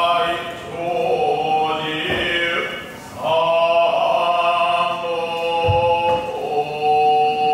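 Buddhist shōmyō chanting: a voice holds long, drawn-out notes that step from pitch to pitch, pausing briefly about three and six seconds in.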